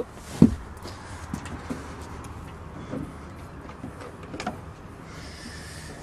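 A single sharp knock about half a second in, then faint clicks and rustles from moving about with a handheld camera, over a steady low background hum.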